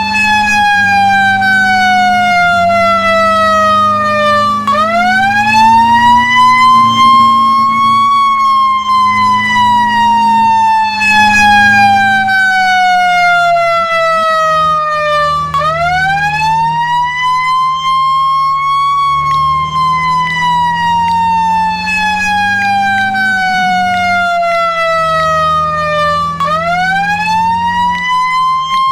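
Fire engine siren on a slow wail: the pitch climbs quickly, then falls slowly over about seven seconds, three times. A steady low engine drone runs underneath.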